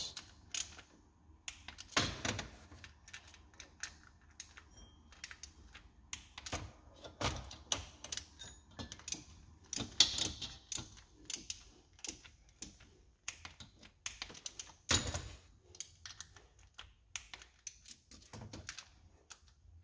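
Ratchet of a torque wrench clicking in irregular runs as the timing chain cover bolts are tightened to 114 inch-pounds, with a few louder single clicks now and then.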